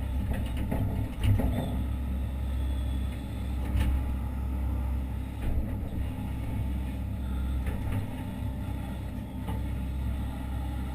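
Hitachi Zaxis 130 excavator's diesel engine running steadily, heard from inside the cab, with a few sharp knocks and clunks over it.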